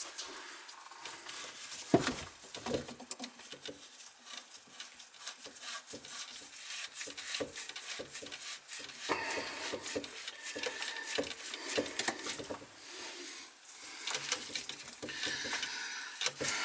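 Plastic slip nut on a PVC sink-drain tailpiece being worked and turned by gloved hands: irregular small clicks, scrapes and creaks of plastic on plastic, with one sharper knock about two seconds in.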